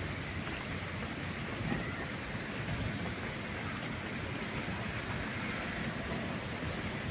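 Steady outdoor city street ambience: a low, even rumble of distant traffic with a faint hiss, and no distinct events.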